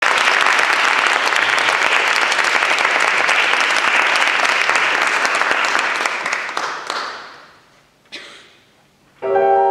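Audience applauding for about seven seconds, then dying away. Near the end a grand piano begins the aria's introduction with a sustained chord.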